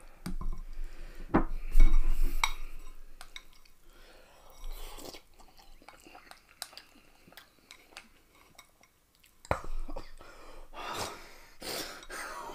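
Chopsticks clicking and scraping against a glass bowl, with a person chewing noodles. The clicks are busiest in the first few seconds, fall quiet in the middle, and pick up again near the end.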